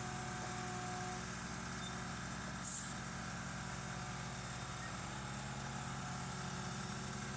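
A machine's engine running steadily at a low, even pitch.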